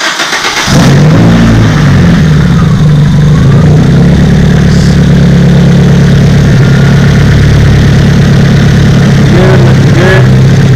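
Nissan 200SX's turbocharged SR20DET four-cylinder engine catching less than a second in and then idling loudly and steadily on its first start-up after reassembly.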